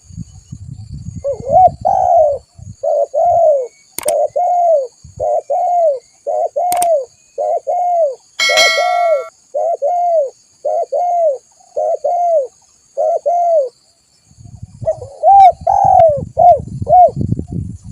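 Spotted dove cooing persistently: a long run of short, rounded coo notes, about two a second, with a brief pause near the end. Two sharp clicks and a short ringing note are heard in the first half, with low rumbling noise at the start and end.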